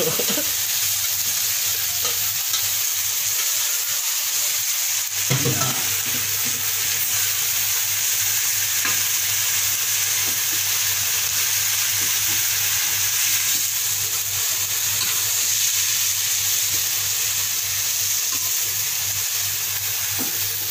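Chopped ubi leaves sizzling as they stir-fry in hot oil in a metal wok, with a spatula stirring and scraping them through the pan. The sizzle is a steady hiss throughout.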